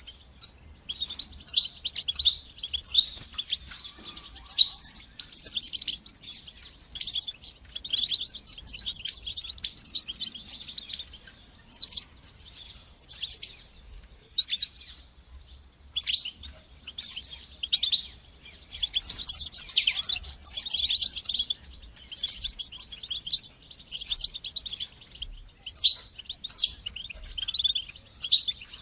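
European goldfinch singing: phrases of rapid, high twittering chirps and trills, with a pause of about two seconds midway.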